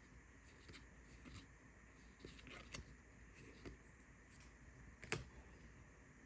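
Faint handling of trading cards: soft flicks and rustles as cards are flipped through, with one sharper click about five seconds in.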